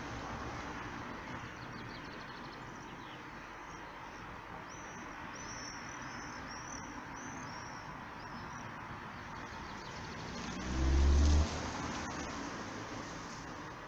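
Classic mechanical warning bell of an AŽD 71 level crossing ringing steadily while the crossing is closed. A few bird chirps come through in the middle, and there is a short low rumble about eleven seconds in.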